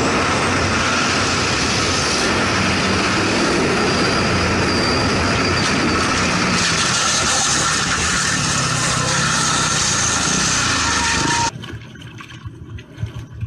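Strong wind blowing in a steady loud rush, which cuts off suddenly about eleven and a half seconds in, leaving a much quieter scene.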